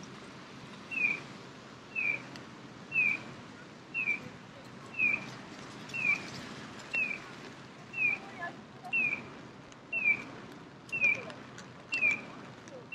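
Japanese audible pedestrian crossing signal giving its electronic bird-like 'piyo' chirp: a short, high, falling double chirp repeating exactly once a second from about a second in. It signals that the walk light is green.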